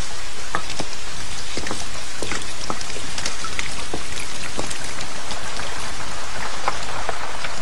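Steady heavy rain, with many separate drops ticking and splashing on nearby surfaces.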